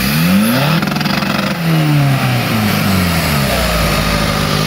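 Modified Suzuki Samurai off-road special's engine revved in two quick rising spurts as it climbs out of a rut, then the revs fall away and it settles to a steady idle near the end.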